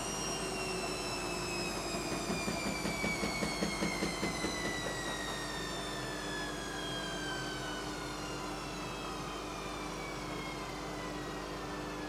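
Bush WMNSN612W washing machine's motor whine falling steadily in pitch as the drum spin slows down. About two seconds in, a rhythmic pulsing at roughly three beats a second comes and goes over a couple of seconds.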